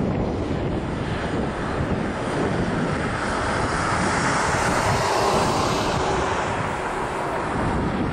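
Jet engines of a twin-engine airliner coming in to land. A continuous jet noise swells through the middle and eases off towards the end as the aircraft touches down.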